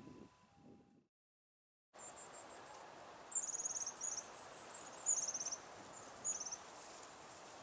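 Long-tailed tits calling: thin, very high-pitched notes in quick runs and short descending trills, coming every second or so after a second-long dropout near the start.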